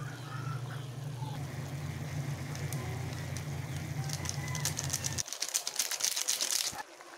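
A foil sachet of seasoning powder is shaken out over a cooking pot, making a rapid dry rustle in the last few seconds. Under it runs a steady low hum that cuts off about five seconds in.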